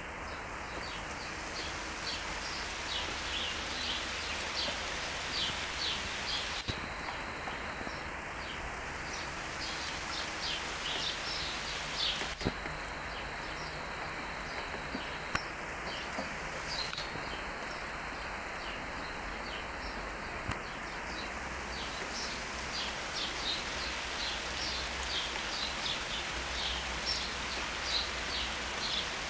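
Steady rain falling on garden trees and shrubs, with small birds chirping in short high notes now and then through the rain.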